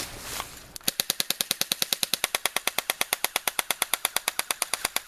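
Airsoft electric gun firing one long full-auto burst, a fast even rattle of shots at about ten to twelve a second, starting about a second in.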